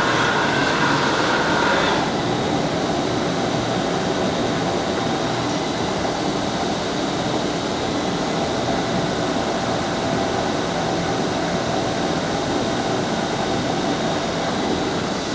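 Blacksmith's forge running: a steady, even rushing noise with no change in rhythm.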